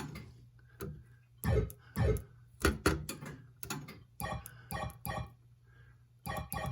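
Gottlieb System 80A pinball sound board playing its electronic sound effects on a test bench: a run of short synthesized tones and chirps, one after another with brief gaps between.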